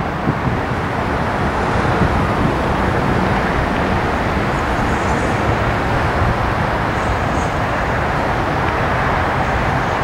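Steady road traffic noise, an even rumble with no horn.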